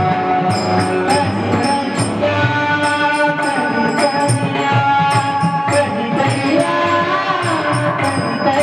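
Marathi bhajan music: a held, wavering melody over drum and a steady beat of sharp, cymbal-like strikes.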